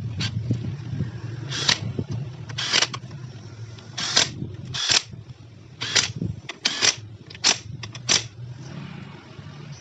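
Hard plastic scooter engine housing being handled and knocked against the engine parts: a string of about ten short clacks and scrapes, irregularly spaced, over a low steady hum.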